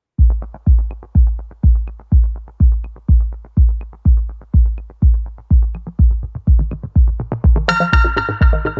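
Electronic dance music: a steady kick drum thumps about twice a second, with a light high tick on every other beat. A bright synth chord comes in near the end.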